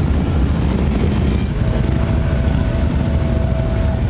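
Motorcycle engines running as bikes ride slowly past, a steady low rumble. A thin, steady high note joins about halfway through.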